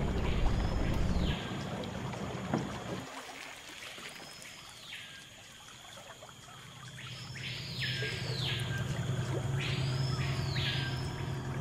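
Boat outboard motor running as a low steady hum, fading out about three seconds in and coming back about seven seconds in. Over it, a bird repeats a short call that rises and then falls in pitch, several times, some in quick pairs.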